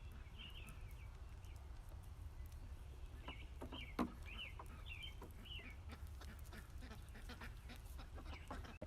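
Faint short, high chirping bird calls in two clusters, one at the start and another from about three seconds in. There is a single knock about four seconds in, and a run of quick clicks through the last few seconds.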